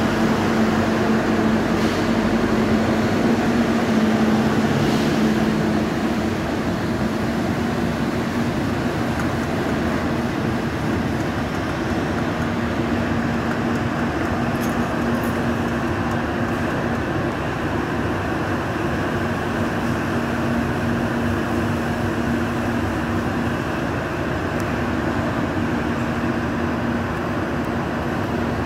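Scomi MTrans2 monorail train pulling away along its elevated guideway: a steady hum with a low droning tone that swells and fades, a little louder at first, mixed with city traffic noise.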